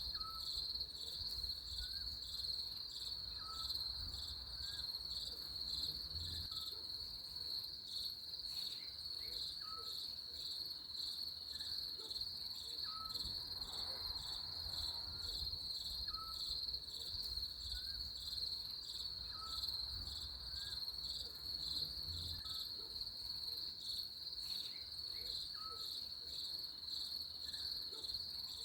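Chorus of crickets trilling steadily in a high, pulsing band, with faint short chirps at a lower pitch recurring about every second or so.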